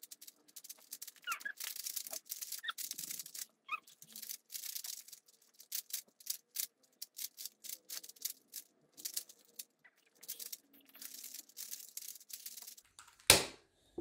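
Rapid, irregular clicking and clacking of a plastic 3×3 Rubik's cube being turned at speed, ending with one loud knock about 13 seconds in as the solve finishes.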